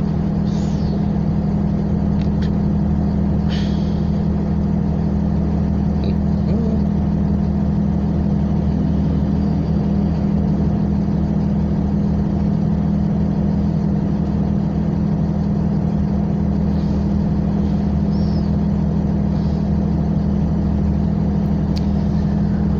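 Cabin drone of a 2010 Nova Bus LFS city bus idling while stopped: a steady, unchanging low hum.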